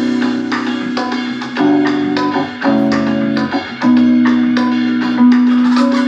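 Recorded music played back through Electro-Voice Evolve 70 column PA speakers for a sound test: sustained keyboard chords that change every second or so over sharp drum hits.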